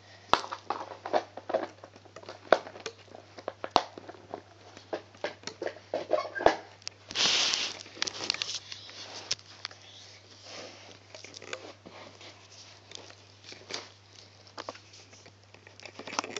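Irregular small clicks and taps of fingers placing rubber loom bands onto the pegs of a plastic loom, with a brief louder rustle about halfway through. A steady low hum runs underneath.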